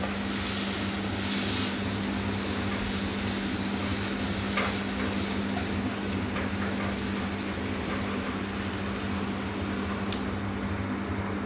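Karela (bitter gourd) with onions and tomatoes frying in a pot with a steady hiss, and a wooden spatula stirring with a few light scrapes and clicks. A steady low hum runs underneath.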